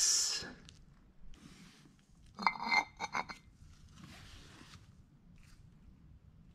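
A few light metallic clinks and knocks about two and a half seconds in, from a steel brake caliper piston being handled against the caliper body, with soft rustling before and after.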